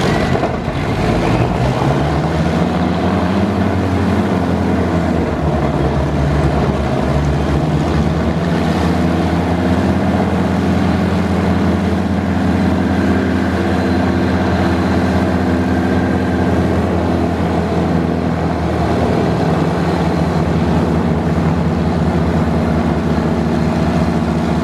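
A single Rolls-Royce Griffon V12 piston engine (number 3) of an Avro Shackleton MR3 running with its contra-rotating propellers, just after a cold start. Its revs rise, dip and climb again in the first several seconds, then it settles into a steady, loud run.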